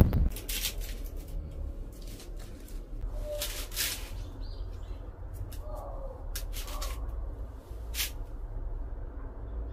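A potted marguerite daisy being handled and turned: a few short rustles of its leaves and pot, over a low steady rumble.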